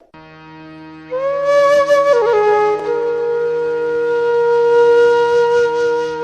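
Intro music: a flute-like wind melody over a steady drone. The melody comes in about a second in, slides between a few notes and then holds one long note.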